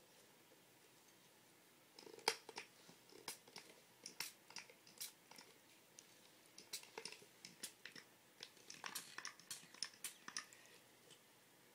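Pump-spray fragrance mist bottle worked again and again: a quick series of faint short spritzes and clicks, starting about two seconds in and stopping near the end.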